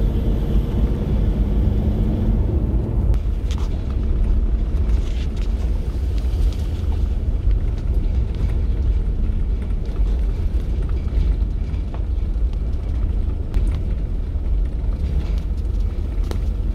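Truck engine and road noise heard from inside the cab while driving slowly: a steady low rumble, with the engine's hum easing off about three seconds in.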